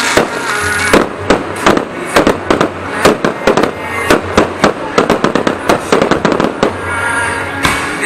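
Aerial fireworks bursting overhead in quick succession, a rapid string of sharp bangs that thins out near the end.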